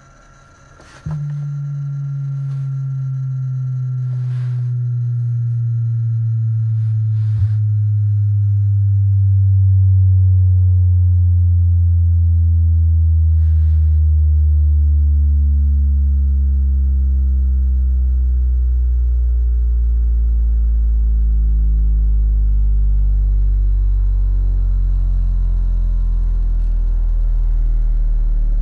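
Sundown Audio X-8 v.3 8-inch car subwoofer in a rear-loaded horn enclosure playing a sine-wave bass sweep, heard inside the car. A loud steady tone starts about a second in near 150 Hz and glides slowly down in pitch, growing louder over the first ten seconds or so.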